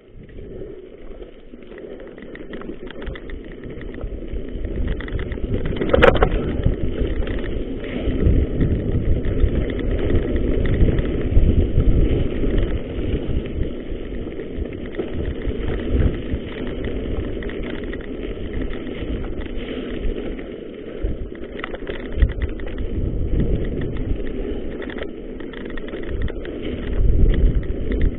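Wind rushing over the microphone of a bike-mounted camera and mountain-bike tyres rolling over a gravel forest trail, building as the bike gathers speed over the first few seconds and then staying loud and uneven with knocks from the rough ground. A sharp click about six seconds in.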